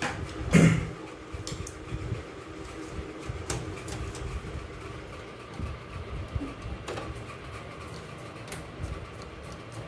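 A long screwdriver driving screws through the steel back panel of a desktop PC case into a power supply unit (SMPS). There is a knock about half a second in, then low scraping and grinding from the turning screw with a few light metal clicks, over a faint steady hum.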